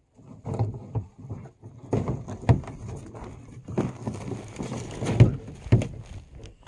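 Sneakered footsteps crunching and thudding on pine needles and wood mulch right beside a ground-level microphone, irregular steps with crackling litter between them.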